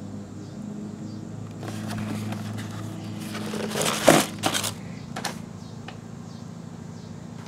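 Cardboard shoe box being opened by hand: the lid scrapes off and paper rustles, with a loud cluster of crackles and knocks about four seconds in as the paper insert is handled. A steady low hum runs underneath.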